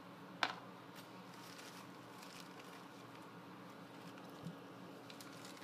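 Faint handling noise of small metal lock picks and their packaging: a sharp click about half a second in, then scattered light ticks and a soft tap over a low steady hum.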